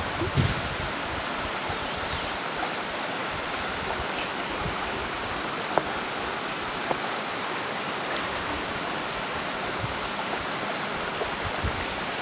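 A shallow rocky stream running steadily, a constant rush of water over riffles, with two brief sharp ticks about a second apart near the middle.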